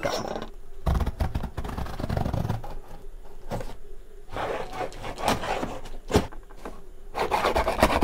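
Steel ruler scraping along and slitting the packing tape on a cardboard box, with the tape crinkling and cardboard rubbing in irregular strokes. A couple of sharp knocks come about midway and near the end.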